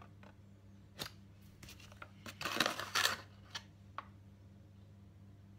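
Metal teaspoon scooping caster sugar out of a paper bag and tipping it into a ceramic mixing bowl: a few light clicks and taps, with a short burst of scraping and rustling about two and a half seconds in.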